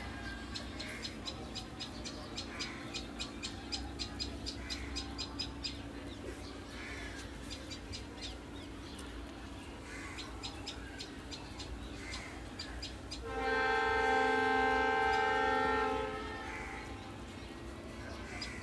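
Birds chirping in rapid runs of short high notes, with a crow cawing about every two seconds. About 13 seconds in, a horn sounds one steady chord for nearly three seconds, the loudest sound.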